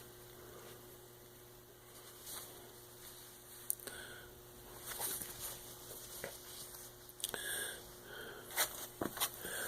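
Faint handling noises: scattered soft rustles, taps and small clicks, busier in the second half, over a low steady hum.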